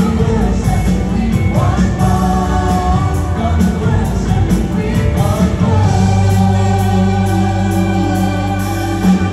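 A large choir sings a gospel worship song over amplified accompaniment, heard across a large arena. From about six seconds in, the choir and band hold a long sustained chord.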